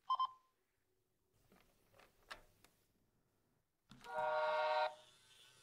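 Brio Smart Tech Sound battery toy locomotive: a short double electronic beep as its top button is pressed, then about four seconds in a train-horn sound from its small speaker lasting about a second, followed by the faint steady whine of its electric motor starting to run.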